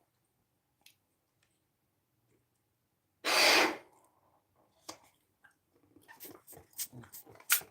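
A sudden loud puff of breath on the microphone, about half a second long, a little over three seconds in. Toward the end come quick wet mouth clicks and smacks from chewing bubblegum.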